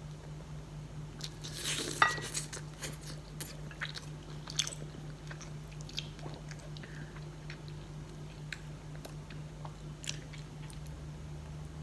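A person chewing and biting into a grilled turkey and cheese sandwich, with scattered crunches and small mouth clicks, the loudest about two seconds in, over a steady low hum.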